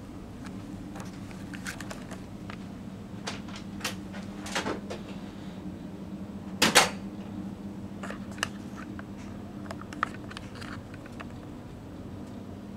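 Steady low hum of a small cabin, with scattered small clicks and knocks. The loudest is a sharp double knock about seven seconds in.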